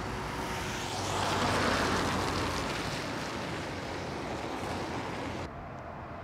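Road traffic driving past, with a vehicle going by loudest about one and a half seconds in. The traffic noise cuts off suddenly near the end, leaving a quieter wind-like hiss.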